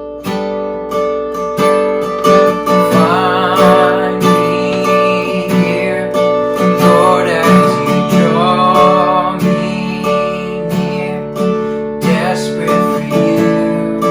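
Worship song played on a strummed acoustic guitar, with a voice singing two wavering melodic phrases, one a few seconds in and one around the middle.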